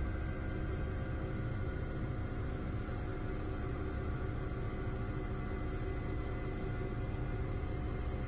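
Steady aircraft engine drone heard from on board: a continuous low rumble with several constant whining tones above it.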